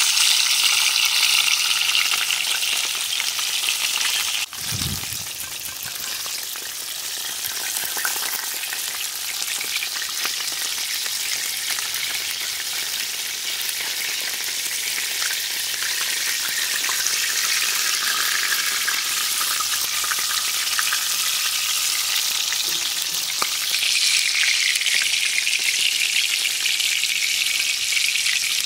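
Whole flour-dredged black crappie deep-frying in shallow peanut oil in a cast-iron skillet: a steady sizzle and crackle of the hot oil. The sound drops suddenly about four and a half seconds in, then slowly builds back up.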